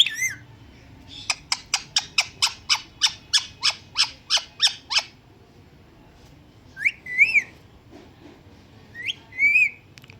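Indian ringneck parrot calling: a sharp call, then a fast even run of about fifteen short chirps, about four a second, then two rising, wavering whistles near the end.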